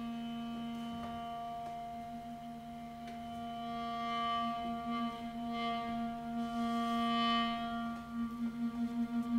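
Music: one held droning tone with a stack of overtones, growing louder about four seconds in and breaking into a quick wavering pulse near the end.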